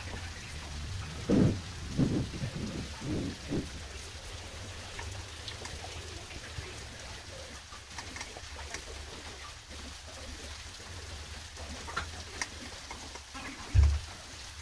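Kitchen handling sounds: a run of dull knocks and a scattering of small clicks and scrapes as a bottle gourd is handled and peeled with a hand peeler over a steel bowl, with one heavier thump near the end. A steady low hum and hiss runs underneath.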